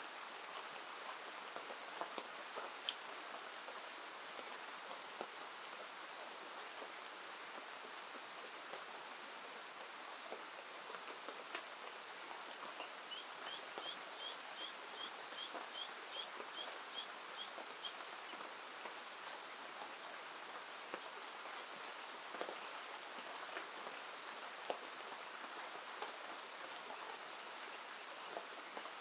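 Steady rain falling, with scattered louder drops. Midway, a bird calls a quick run of about a dozen short high notes over some five seconds.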